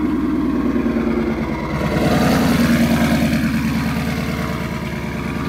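Twin-turbocharged 2019 Ford Mustang GT's 5.0 V8 through a Corsa exhaust, running at low speed as the car pulls away. It gets louder about two seconds in as it is given some throttle, then eases off, and it is pretty loud.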